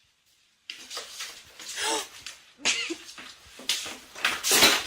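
A pet animal's short calls and sharp noisy bursts, starting suddenly just under a second in.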